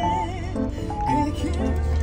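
Background music: a melody of short pitched notes, some with a wavering pitch, over a steady bass line.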